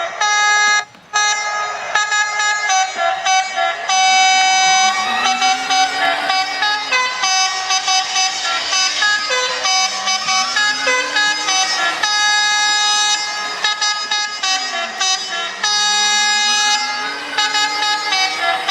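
Multi-tone telolet 'basuri' bus horn playing a melody of held notes that change in steps, with rising and falling siren-like glides sliding through it. It breaks off briefly about a second in.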